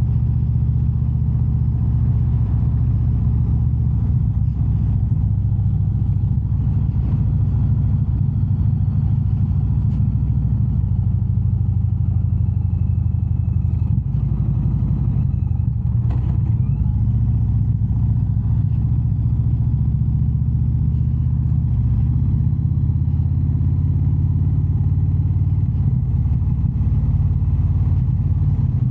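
Indian Super Chief Limited's V-twin engine running steadily under way, a deep, even drone. The engine note wavers briefly about halfway through, then settles again.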